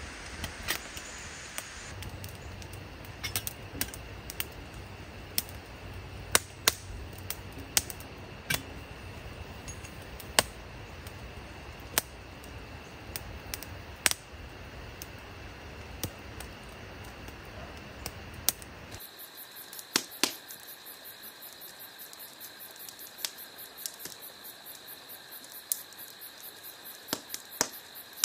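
Campfire crackling, with irregular sharp pops and snaps over a low steady rumble. About two-thirds of the way through this cuts off abruptly to insects chirping in a steady rapid pulse, with a few more clicks.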